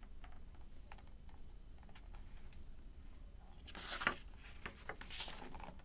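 Page of a hardcover picture book being turned by hand: a brief papery rustle about four seconds in and a softer one about a second later, among faint clicks.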